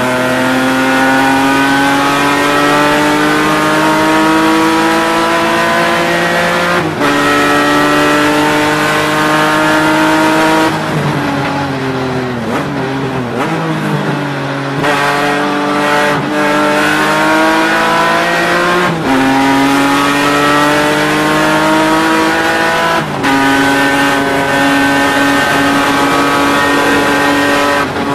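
BMW E36 race car's engine heard from inside the cockpit under hard acceleration, its pitch climbing steadily through each gear with quick upshifts about 7, 19 and 23 seconds in. Around 11 to 15 seconds in the revs fall and waver through downshifts as the car brakes for a corner, then climb again.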